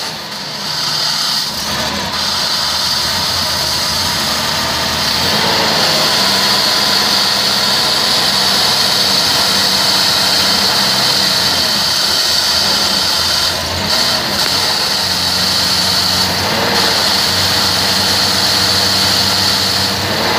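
2007 Chevrolet Impala's 3.5-litre V6, 145,000 miles on it, idling steadily. A steady high-pitched sound runs over the engine hum.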